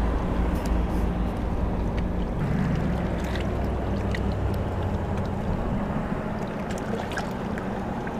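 A motorboat engine drones steadily out on the lake, with its pitch shifting slightly a couple of seconds in, over wind and water noise and a few light ticks.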